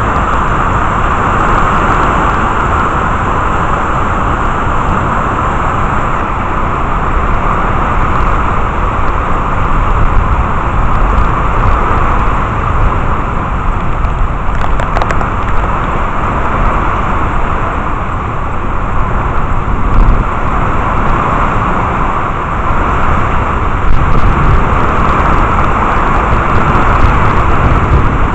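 Steady, loud thunderstorm noise of wind and rain, with wind rumbling on the microphone. The rush swells and eases every few seconds.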